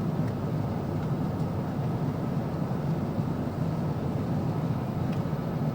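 Steady airliner cabin noise: jet engine and airflow drone heard from inside the passenger cabin, an even rumble.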